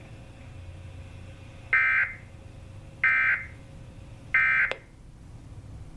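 NOAA Weather Radio broadcast sounding three short digital data bursts about a second and a quarter apart. These are the SAME end-of-message code that closes the weekly test alert.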